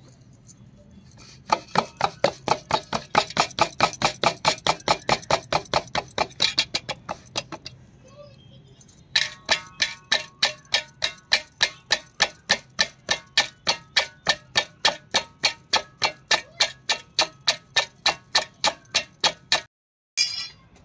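Hand rhythmically patting a ball of bhakri dough flat on a steel plate, about five pats a second, in two long runs with a short pause between them. A faint ringing tone sits under the second run, which stops abruptly near the end.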